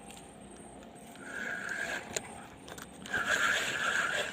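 Fishing reel buzzing in two runs, the second louder, as a hooked fish pulls line. There is a single sharp click between the runs.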